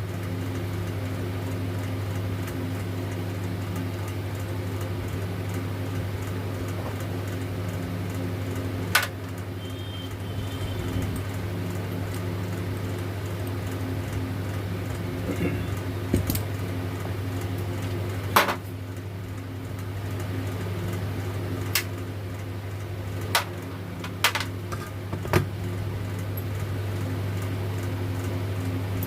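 A steady low hum from a fan or other electric machine, with about seven short, sharp clicks and taps scattered through it, from metal tools and parts being handled while a starter motor is taken apart.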